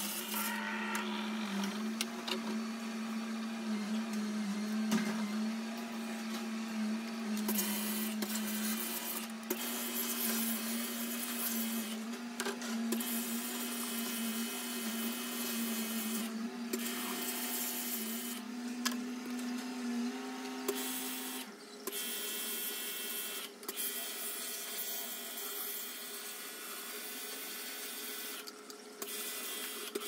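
Portable electric pressure washer running, its motor pump humming steadily while a water jet hisses against the washing machine's plastic tub. The hum stops about two-thirds of the way through, and a hiss goes on.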